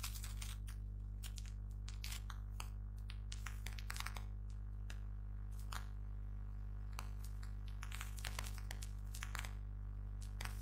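A steady low hum with faint clicks and ticks scattered irregularly through it.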